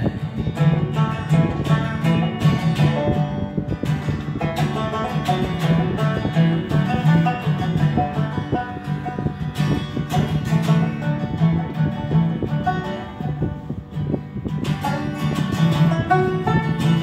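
Live folk music: a banjo and an acoustic guitar playing together, with quick plucked banjo notes over the guitar.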